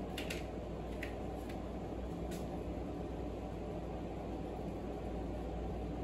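Steady hum and hiss of an air conditioner and a fan running together. A few faint light clicks come in the first couple of seconds.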